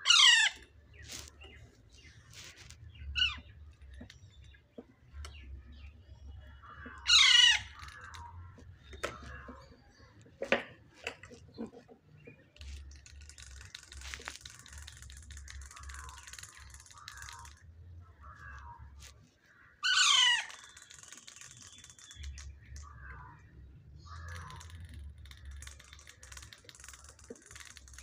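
Baby Alexandrine parakeet chicks calling while being fed: loud, harsh calls that fall in pitch, each under a second long. Three loud calls come several seconds apart, with fainter short calls between.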